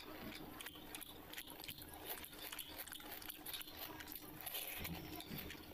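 Close-miked eating sounds: chewing a mouthful of panta bhat (water-soaked rice), with many quick wet mouth clicks.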